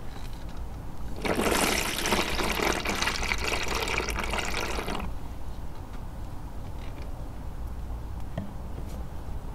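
Water pouring in a steady stream onto a bowl of sifted gym chalk powder for about four seconds, starting and stopping abruptly.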